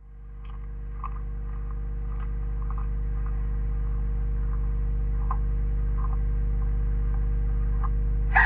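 Steady electrical mains hum that swells over the first couple of seconds, with a few faint short clicks over it.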